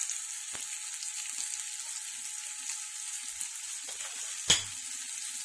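Ground-beef burger patty frying in oil on a nonstick grill pan: a steady high sizzle. A single sharp knock sounds near the end.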